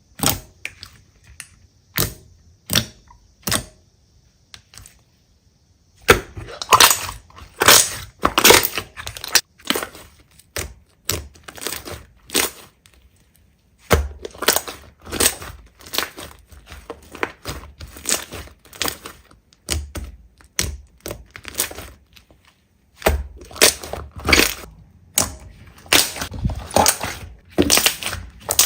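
Slime being squeezed and pressed by hand, giving runs of sharp crackles and pops with short pauses between them.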